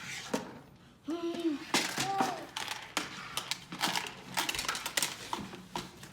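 Small plastic toys clicking and clattering in quick, irregular knocks, with a couple of short vocal sounds from a child about a second in.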